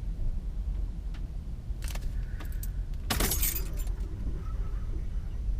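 A bunch of keys jingling, in a short burst about two seconds in and a longer one about three seconds in, over a low steady rumble, while the ignition is worked on a vehicle with a dead battery.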